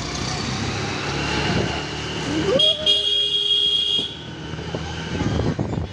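Motorcycle engine running as it rides, with a horn sounding once, held for about a second and a half near the middle.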